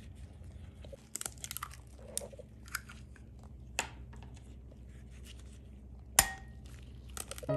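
Eggs being cracked into a glass bowl: small crackles and taps of the shell, then one sharp crack about six seconds in.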